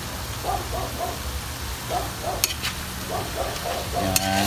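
A metal spatula clinks against a metal wok as chicken pieces begin to be stirred, sharply twice in the second half, over a steady low hum and light sizzling.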